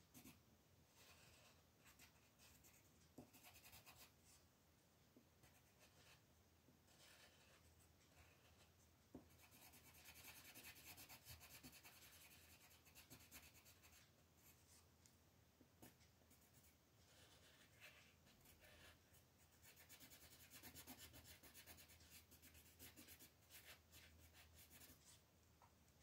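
Faint scratching of a red coloured pencil shading on paper, in stretches of quick strokes that come and go, louder in two spells.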